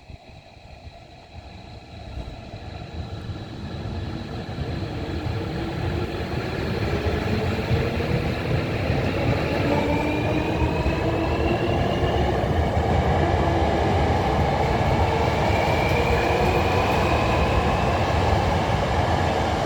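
Hankyu 1000 series electric train pulling away. Its traction motor whine rises steadily in pitch as it speeds up, and a low rumble of wheels on rail grows louder over the first several seconds, then holds.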